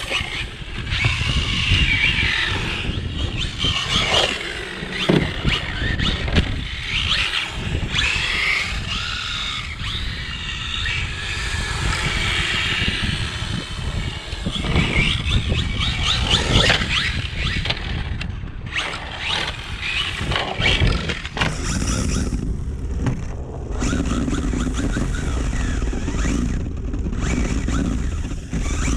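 Brushless electric motor and four-wheel-drive drivetrain of a small RC drift car whining, rising and falling again and again with the throttle as the car slides around on wet concrete. Wind rumbles on the microphone throughout.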